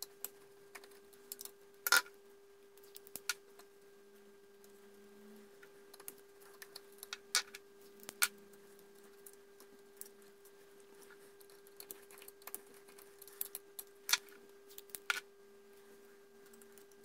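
Scattered small clicks and taps of a screwdriver working the terminal screws of a heating programmer's wall backplate as the wires are loosened and pulled free, the sharpest about two seconds in and again around eight and fourteen seconds.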